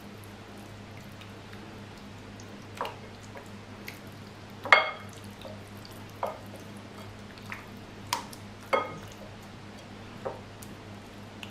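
Scattered wet squelches and clicks as a hand kneads a yogurt-and-spice marinade into raw chicken pieces in a ceramic bowl; the loudest, a little before halfway, rings briefly. A faint steady hum lies underneath.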